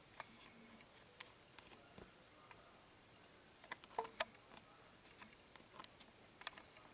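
Near silence: room tone with a few faint, irregular clicks, a small cluster of them about four seconds in.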